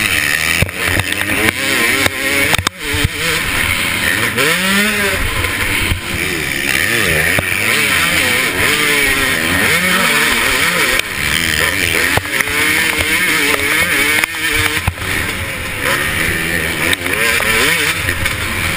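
KTM 250SX two-stroke motocross bike's engine under race throttle, revving up and down over and over as the rider shifts and rolls on and off through the track. The sound drops out for a moment about three seconds in.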